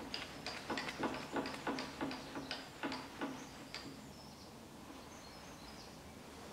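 Light metallic clicks, about three a second, each with a short low ring, from a wood lathe's chuck and tailstock as a blank is clamped between the chuck and the live centre. The clicks stop a little before four seconds in, leaving faint high chirps.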